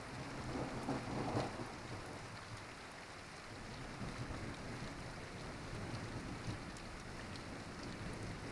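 Steady rain in a thunderstorm, with a low rumble of thunder swelling in the first second or two.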